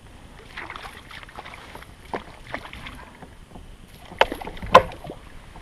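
Handling noise on a fishing kayak while a fish is brought in: scattered rustles and light taps, then two sharp knocks about half a second apart a little over four seconds in.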